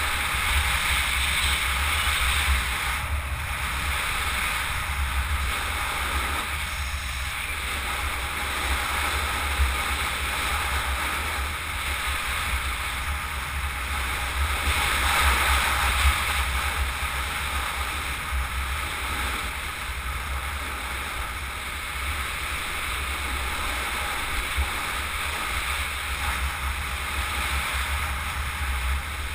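Steady wind buffeting on a helmet-mounted camera's microphone during a fast downhill run, a deep rumble over a constant hiss of wheels on asphalt, swelling briefly about halfway.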